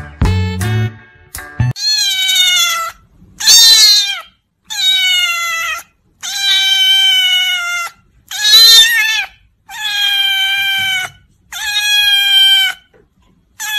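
A cat meowing loudly over and over: seven long meows of about a second each, separated by short pauses, some dropping slightly in pitch at the end. Music plays briefly at the start.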